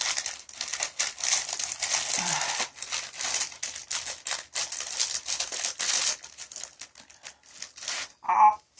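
Plastic snack bag crinkling and crackling as it is handled and opened, dense for about six seconds and then thinning to scattered crackles. A brief pitched sound near the end.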